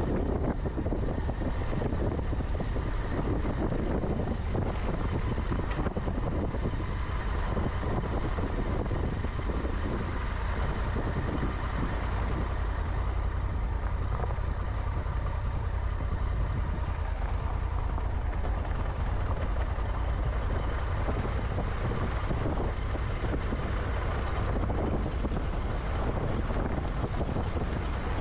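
Honda Africa Twin's twin-cylinder engine running steadily as the bike rides along a dirt and gravel forest track, with tyre and wind noise mixed in.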